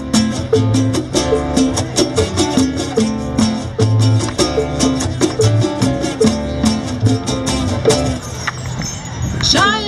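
Live band playing a Latin-flavoured instrumental groove: an upright bass repeating a bass line, with congas and an acoustic guitar keeping a steady beat. A woman's singing voice comes in near the end.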